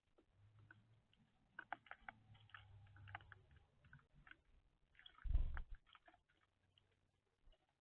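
Birds pecking at seed on a feeder: scattered small clicks and taps, with one louder dull thump about five seconds in.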